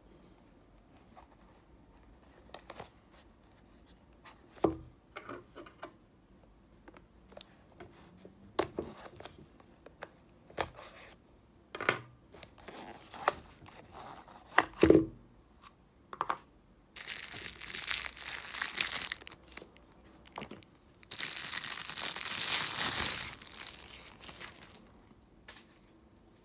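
A small cardboard knife box being handled and opened. First come scattered taps and sharp knocks, the loudest about halfway through. Then come two long noisy stretches of a few seconds each as the knife is pulled out and unwrapped from its packaging.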